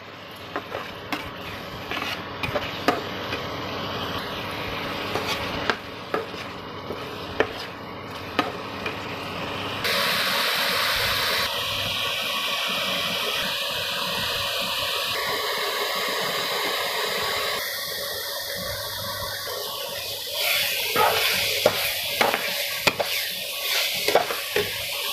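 A steel spatula stirring and scraping thick onion-tomato masala as it fries in oil in a steel pan, under a steady sizzle; the masala is being cooked until the oil separates. The scraping clicks come thick in the first several seconds and again near the end, with a louder, steadier sizzle in the middle.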